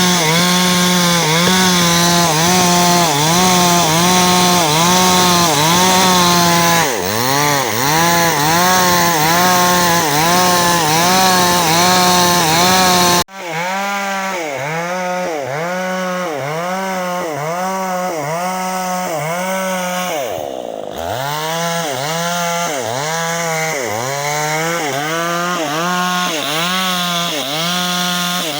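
Chainsaw running at high revs while cutting timber, its engine pitch dipping and recovering under load a little more than once a second. About 13 s in the sound cuts off abruptly and resumes quieter. Near 21 s the engine pitch drops briefly and climbs back.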